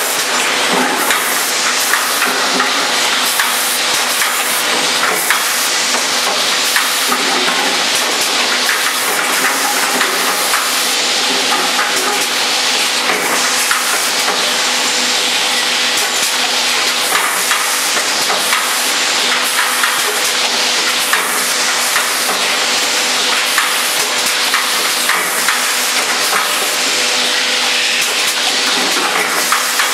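Automatic four-lane shot glass filling machine running: a constant clatter of shot glasses knocking along the conveyors and chute, over a steady machine hum and hiss.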